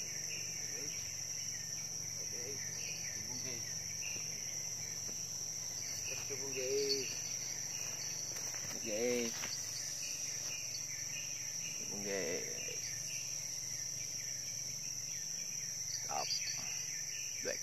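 Steady high-pitched insect chorus, with a faster pulsing chirp running underneath it.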